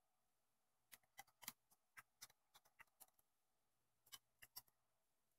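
Faint, irregular small plastic clicks and taps as the ribbon cables of a Nikon Coolpix L820's LCD screen are worked into their flip-lock connectors on the circuit board. There is a quick run of clicks for about two seconds, a pause, then a few more near the end.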